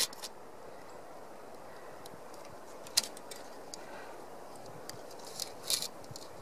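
A few light clicks and taps from a steel tape measure held against a sawn slab, over a quiet outdoor background: one sharp click about three seconds in and a few more near the end.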